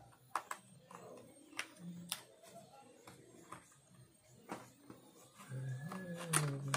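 A small cardboard box handled and its end flap pried open by hand: scattered light clicks and scrapes of the card. A low steady hum sets in about a second before the end.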